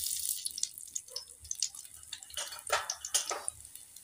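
Dry whole coriander seeds dropped into hot oil in a kadhai: a sudden sizzle as they hit, then a steady hiss with scattered crackles and pops as the seeds fry.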